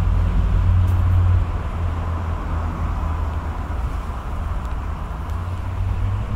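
Steady low rumble and hiss of city background noise, typical of road traffic. The rumble eases slightly about a second and a half in.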